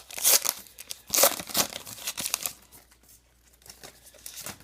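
A baseball card pack's wrapper being torn open and crinkled, in loud tearing bursts over the first two seconds or so, then quieter rustling as the cards are handled.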